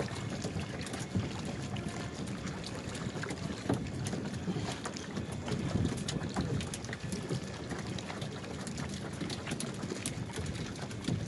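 Water sloshing and slapping around a crowd of wooden outrigger fishing canoes, with frequent small sharp knocks and splashes.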